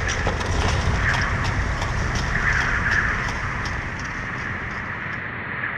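Wind rumbling on the microphone outdoors, with an even hiss and a run of light ticks about three a second that thin out near the end.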